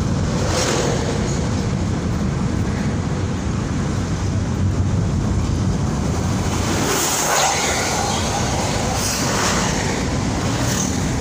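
Steady road and engine rumble heard inside a Daihatsu Ayla hatchback's cabin while driving, with brief rushes as oncoming vehicles pass, the clearest about seven seconds in.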